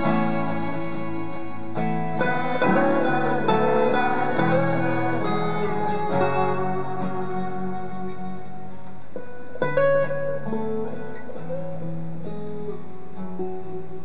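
Live instrumental music from a small acoustic ensemble: acoustic guitars picking and strumming under bowed violin and cello. The playing is full in the first few seconds, then thins out, with one sharp accented chord about two-thirds of the way through.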